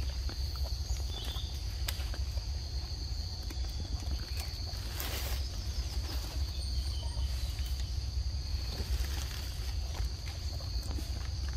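Steady high-pitched drone of insects in forest undergrowth over a constant low rumble, with scattered small clicks and a short rustling burst about five seconds in.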